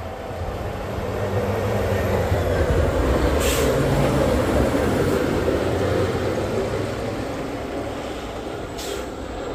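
Diesel snowplow truck driving past while plowing snow off the road, its engine and the blade pushing snow swelling to a peak about three to four seconds in, then fading as it moves away.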